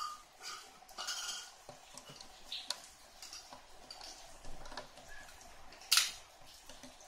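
Light clicks, taps and rattles of small plastic and metal parts, screws among them, being handled while a pet hair dryer is assembled, with one louder clack about six seconds in.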